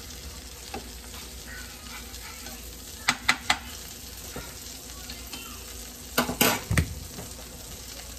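Eggs frying in a skillet with a steady sizzle. A few sharp clicks come about three seconds in, and a cluster of them again just after six seconds.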